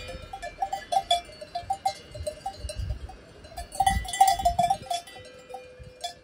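Cowbells on grazing cattle clanking irregularly, many bells of several pitches ringing at once, with low rumbles underneath.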